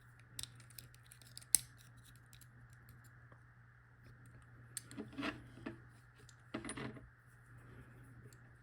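Small metal clicks and taps from handling the opened Abloy padlock and its parts, with one sharp click about a second and a half in and two short rattling scrapes later on, over a steady low hum.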